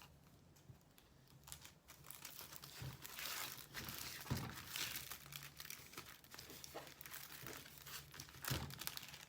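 Plastic packaging of a diamond painting kit crinkling and rustling as it is handled, faint at first and picking up about a second and a half in, with a few soft knocks.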